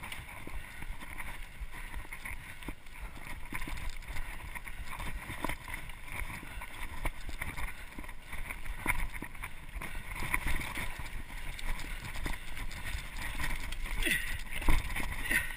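Mountain bike ridden fast down a dirt singletrack: wind buffeting the GoPro microphone, with tyre noise and frequent rattles and clicks from the bike over bumps and roots. A few higher, sharper sounds come near the end.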